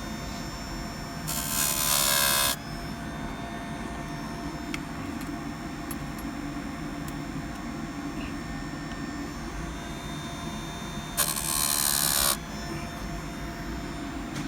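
Electric chain saw sharpener's grinding wheel whining and grinding in two short bursts of about a second each, once near the start and again about two-thirds of the way through, as it sharpens chain teeth; a steady low hum between.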